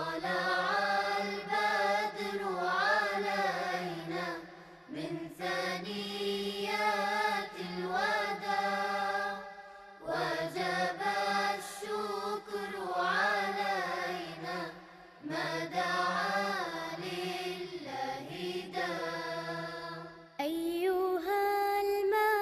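Melismatic chanted singing in a nasheed style, in phrases of about five seconds over a steady low held note. The sound changes slightly about two seconds before the end as a new phrase begins.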